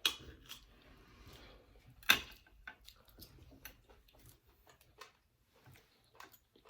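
Eating sounds close to the microphone: scattered soft clicks and mouth noises while eating, with one sharper click about two seconds in.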